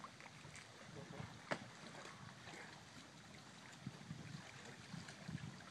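Faint outdoor ambience of water lapping at a rocky shore, with a few soft clicks, the sharpest about a second and a half in.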